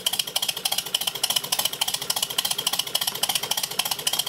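Miniature steam locomotive chassis running on compressed air with its wheels turning free, giving rapid, even exhaust beats.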